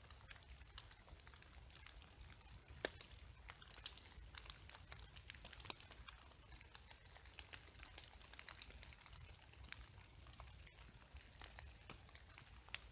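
Rain dripping through bare woodland: faint, irregular ticks of raindrops on branches, leaves and ground over a soft steady hiss, with one sharper drop about three seconds in.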